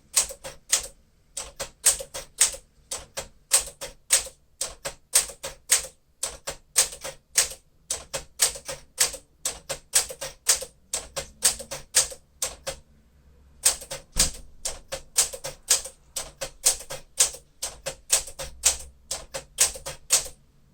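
1956 Smith-Corona Clipper manual typewriter typing out the alphabet: a steady run of sharp type-bar strikes, two or three a second. There is a short pause about two-thirds through, then one heavier knock.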